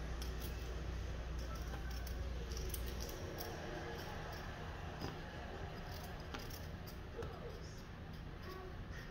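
Knife peeling a red potato held in the hand: faint scraping cuts and small clicks, with a low hum that stops about three seconds in.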